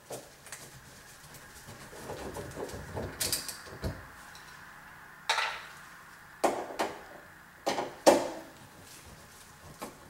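Sheet-metal access panel of a Goodman air handler being worked loose and handled: a string of sharp metallic clicks and knocks, softer rubbing first, the loudest knocks coming about five to eight seconds in.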